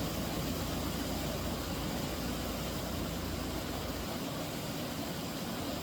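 Steady rushing of flowing river water, an even noisy rush with no distinct events.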